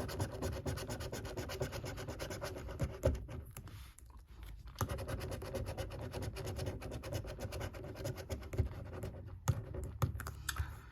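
Scratchcard being scratched: fast repeated scraping strokes across the card's coating, with a short pause just before four seconds in.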